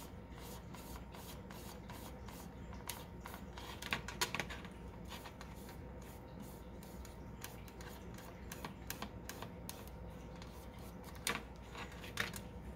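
Foam brush dabbing and scrubbing paint onto a ribbed tin can: a faint, rapid run of soft scratchy strokes, about three or four a second, with a few louder taps.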